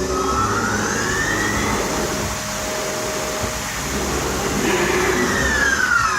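Bridgeport Romi EZ-Path S lathe's spindle drive running with a whine that rises in pitch as the spindle speeds up over the first second or two, then falls steeply near the end as the spindle slows down, over a steady machine hum.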